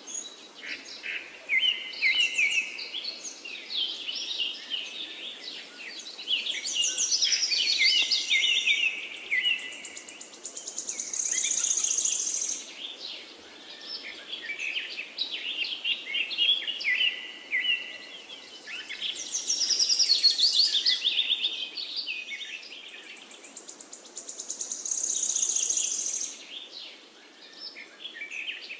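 Several birds chirping and singing, a mix of quick trills and high twittering calls that swell and fade in waves.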